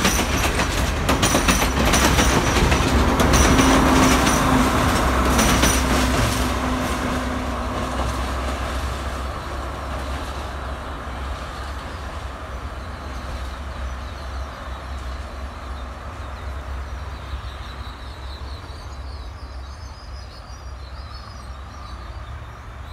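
A Sri Lanka Railways Class S9 diesel multiple unit passes at close range, its wheels clacking quickly over the rail joints. After about six seconds the clacking stops and the low rumble of its rear power car fades steadily as the train draws away.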